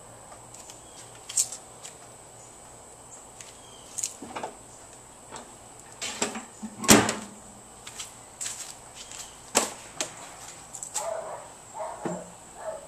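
Scattered knocks and clicks at irregular intervals, the loudest about seven seconds in, over a faint steady hum and a thin high whine. Near the end there are a few short higher-pitched sounds.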